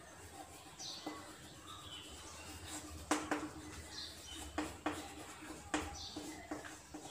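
Chalk knocking and scratching against a chalkboard as words are written: a string of short, sharp taps, the loudest about three seconds in. Short, high bird chirps come through faintly a few times.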